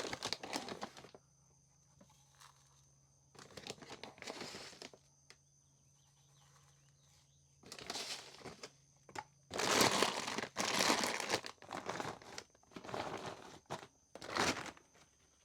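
Feed bag rustling and crinkling in repeated bursts as goat feed and mineral are scooped and handled, the loudest stretch about two thirds of the way through.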